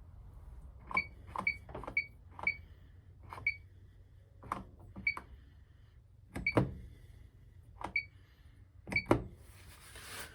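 Electrolux Quickwash commercial washing machine's control panel buttons pressed about a dozen times at an irregular pace, each press a click with a short high beep, as the machine is stepped into its service mode. A short hiss near the end.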